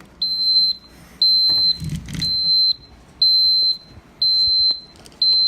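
Schlage KN150 electronic keypad lock's tamper alarm beeping: a high-pitched half-second beep about once a second. It is the alarm set off by fitting the batteries for the first time.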